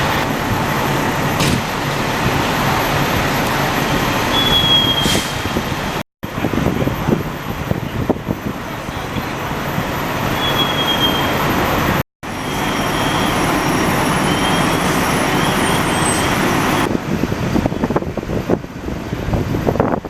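Steady traffic noise with large vehicle engines running, a continuous rumble and hiss. The sound drops out briefly twice.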